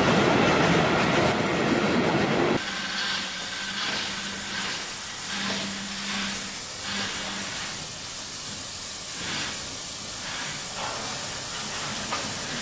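Steam train running past with a loud rumble of wheels and exhaust, cutting off about two and a half seconds in. Then an FS class 625 steam locomotive standing with steam up: a steady hiss of steam with soft, irregular puffs.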